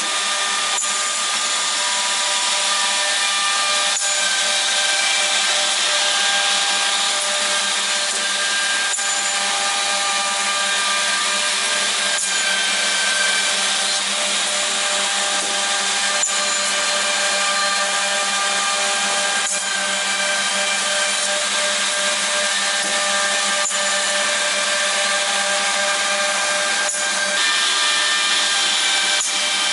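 OTT Tornado edge banding machine running: a steady multi-tone motor whine over a loud hiss, with a sharp click every few seconds.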